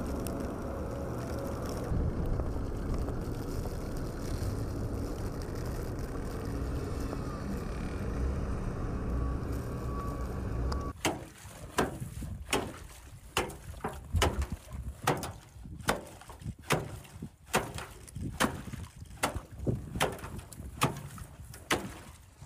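Steady outdoor rumble at first, then from about eleven seconds in a run of sharp chopping strikes, about two a second: an axe breaking the ice on a metal livestock water tank.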